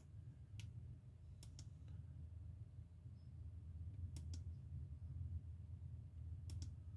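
Computer mouse clicking a few times, singly and in quick pairs, over a low steady hum.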